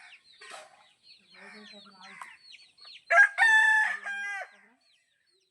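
A rooster crowing once, loud, starting about three seconds in and lasting about a second and a half, over faint, repeated high chirping from the flock.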